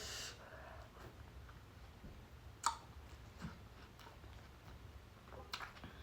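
A person eating seafood close to the microphone: faint chewing with a few sharp mouth clicks, the loudest a little under three seconds in and another near the end.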